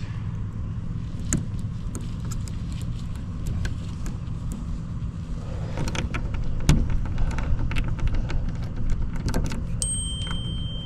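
Scattered small metallic clicks and ticks from a locksmith's tools working a shed lock, over a steady low rumble, with a few louder knocks midway. A thin, steady high tone starts near the end.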